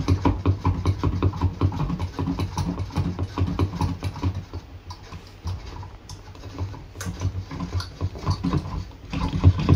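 Steel stand rod of a boom-stand microscope being twisted by hand into its base: a rapid run of small clicks and scrapes, thinning out about halfway through and picking up again near the end.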